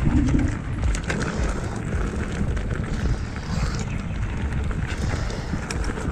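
Mountain bike ridden fast on a rough dirt trail: tyres rolling over stones and the bike rattling and knocking over bumps, over a dense, uneven rumble.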